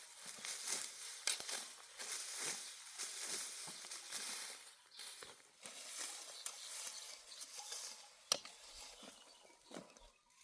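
Dry barley stalks rustling and crackling as they are pulled up by hand, an irregular run of crackles with one sharp snap a little past eight seconds, growing quieter near the end.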